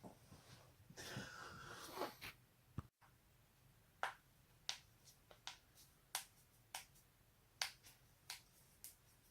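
Human joints cracking: about nine sharp, separate pops spaced roughly half a second to a second apart, after a soft rustling of movement in the first two seconds.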